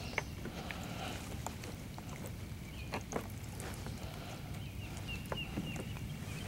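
Scattered light knocks and clicks of handling inside a plastic kayak, the clearest about three seconds in, over a steady low rumble.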